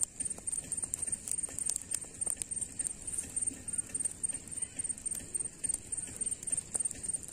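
Open wood fire crackling, with sharp irregular snaps and pops, as pearl millet spikes roast in the flames. A high, evenly pulsed chirp, several pulses a second, runs steadily behind it.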